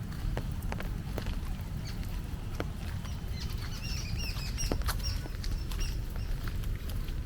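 Rainy forest-path ambience: scattered taps of footsteps and dripping rain over a low steady rumble, with a small bird giving a quick run of short chirps about four to five seconds in.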